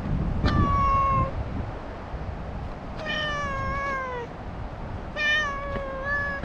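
A stray cat meowing three times in a chatty, drawn-out way; the middle meow is the longest and slides down in pitch.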